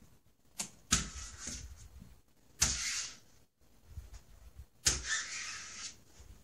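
Cat's claws scratching and scrabbling at a door, in three bursts of scraping, each up to about a second long.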